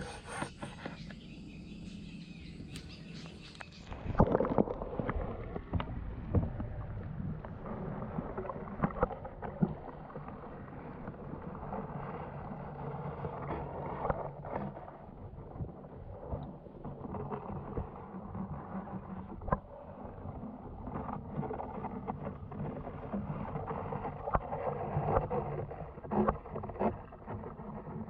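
Open-air pond ambience, then about four seconds in a loud thump as the camera goes under the water. After that comes muffled underwater noise heard through the camera housing, dull and low, with irregular clicks and knocks.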